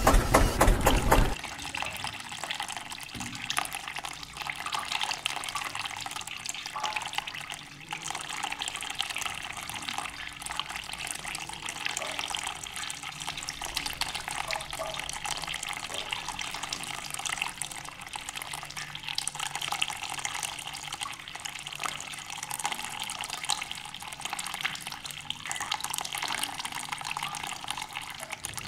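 Water running from a small brass ball valve on a toy tank trailer and splashing into a muddy puddle: a steady trickling hiss with fine spattering. A loud low mechanical rumble cuts off about a second in.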